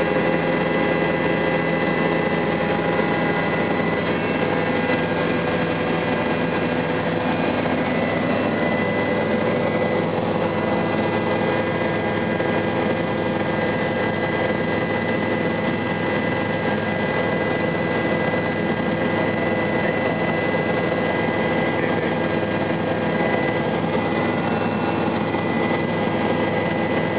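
Helicopter running steadily: a constant engine drone with several steady whining tones over it, unchanging throughout.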